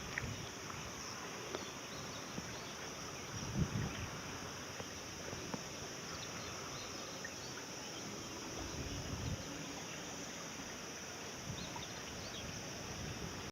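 Steady, high-pitched insect chorus in summer countryside, with low rumbling swells about four seconds and nine seconds in.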